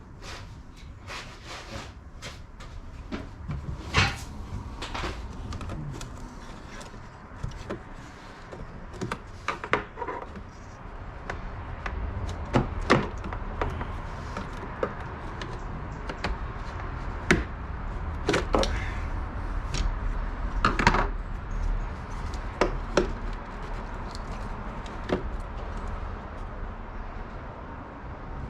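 Irregular clicks, taps and knocks of hand tools and parts being handled during repair work, with a low steady rumble underneath that grows a little louder in the second half.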